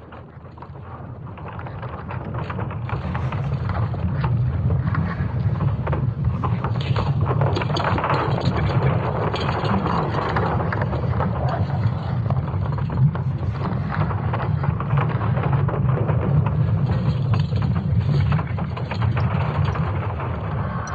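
Sonification of Earth's magnetic field, made from magnetic signals measured by the European Space Agency's Swarm satellites: a dense rumble with continual crackling and creaking over it. It swells in over the first few seconds, then holds steady.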